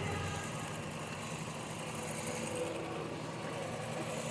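Nissan Sentra's four-cylinder engine idling steadily and fairly quietly. The engine has sporadic misfires.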